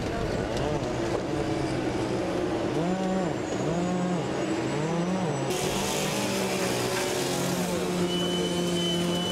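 Diesel engine of a Shantui wheel loader running, revving up and down several times in quick succession about three seconds in, then running at a steady pitch.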